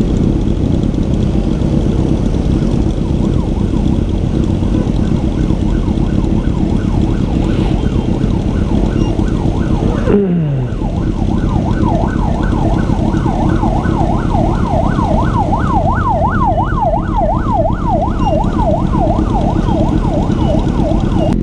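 Ambulance siren yelping in rapid up-and-down sweeps, faint at first and much louder from about halfway through as it comes closer, over the steady rumble of idling motorcycles and traffic. About halfway through, a short sound drops sharply in pitch.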